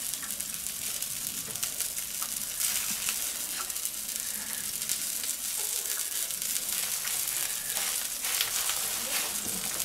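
Melted butter and chicken fat sizzling on the hot charcoal and the skin of a rotisserie chicken as butter is drizzled over it: a steady crackling hiss, with a few faint clicks scattered through.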